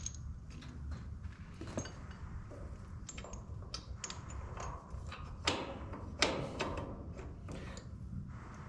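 Metal machine parts clinking and knocking as they are handled and fitted by hand, with irregular light clicks and two sharper knocks a little past halfway.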